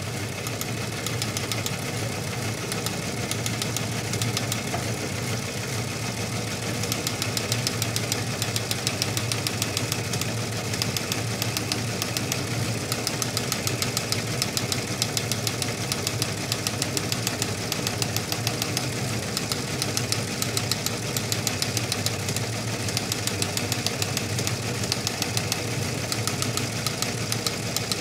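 Teletype machine running: a steady motor hum under a rapid, even clatter of printing clicks, which grows sharper about six seconds in.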